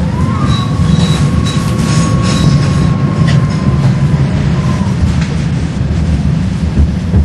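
A tram running on its rails with a steady low rumble. A high, steady wheel squeal rises in at once, holds for about four and a half seconds, then drops away. A couple of sharp knocks come near the end.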